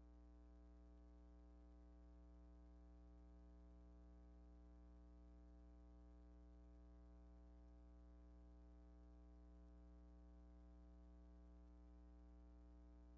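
Near silence, with only a faint, steady low hum that carries a ladder of higher overtones and never changes.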